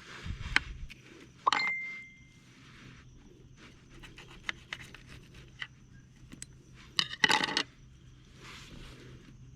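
Small hard objects being handled, clicking and scraping, with a sharp metallic clink about a second and a half in that rings briefly, and a quick rattle of clicks around seven seconds in.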